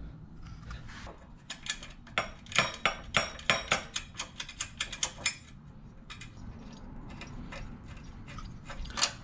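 A quick, irregular run of sharp metallic clicks and clinks lasting a few seconds, then a few scattered ones and a single louder click near the end, as a steel exhaust header pipe is fitted to a small engine's exhaust port and its flange nuts are fastened.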